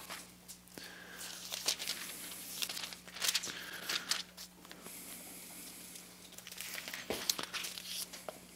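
Bible pages being leafed through to find a passage: quiet, irregular papery rustles and crinkles.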